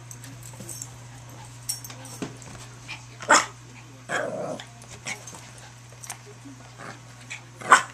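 Small dogs at play, a Yorkshire terrier and a Shih Tzu: two sharp barks, about three seconds in and near the end, between quieter short yips and scuffles.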